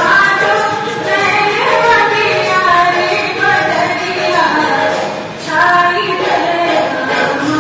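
Kajri folk song with female vocals singing the melody, dipping briefly between lines about five seconds in.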